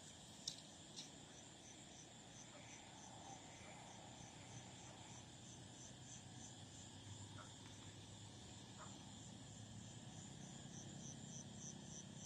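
Faint evening insect chorus: a steady high buzz with a cricket-like chirp pulsing evenly about two to three times a second. Two small clicks about half a second and a second in.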